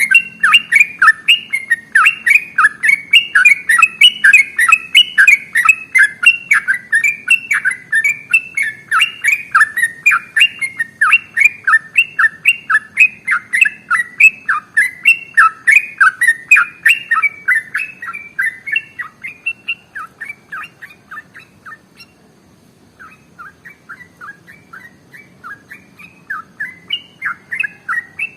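Yellow-vented bulbul (trucukan) singing a long, unbroken run of rapid chirping notes, about three a second. The song fades after about two-thirds of the way through, breaks off briefly, then carries on more softly.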